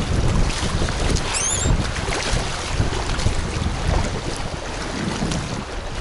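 Fast river current rushing and splashing around an inflatable packraft, with wind buffeting the microphone in a steady low rumble. A brief high chirp sounds about a second and a half in.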